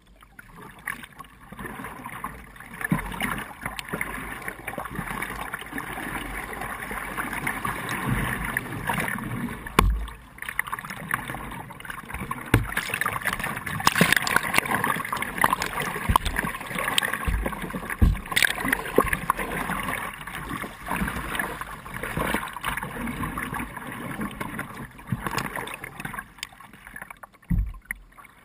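Kayak paddle strokes splashing and river water rushing against a playboat's hull, heard from a camera on the bow, with a few short low thumps scattered through.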